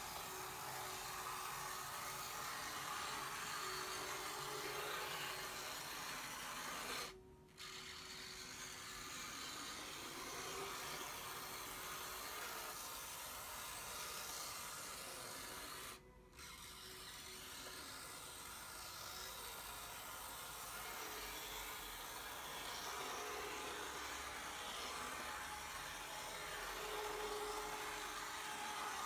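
Small electric motor and gearing of an N scale model Shay locomotive's PowerMAX power truck whirring faintly as it runs around the track, under a steady hiss. The sound cuts out briefly twice.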